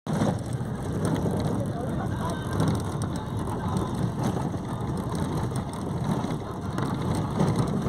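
Inside a moving bus: a steady low rumble of engine and road, with continual rattling and clicking of the bus body and fittings as it goes over a rough road.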